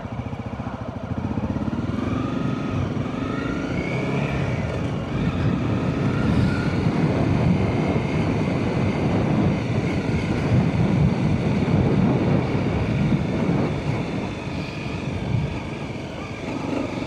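Motorcycle engine running while riding along a trail, a steady rumble whose pitch rises and falls a few times with the throttle.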